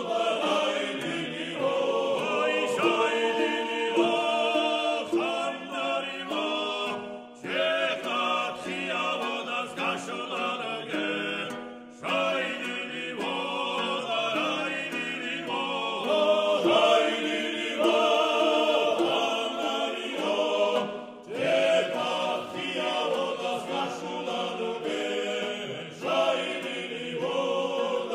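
Choral music: several voices singing together, with a few short breaks between phrases.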